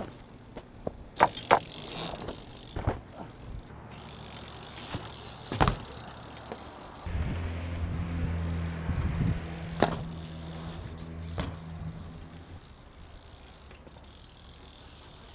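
BMX bike being ridden and tricked on pavement: several sharp clacks of the wheels and frame hitting the ground. Midway a steady low hum runs for about five seconds and cuts off suddenly.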